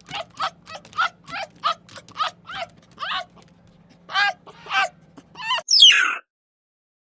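A farm animal calling in a quick series of short calls, about three a second. Then come two more calls, and a louder call that sweeps upward before the sound cuts off abruptly.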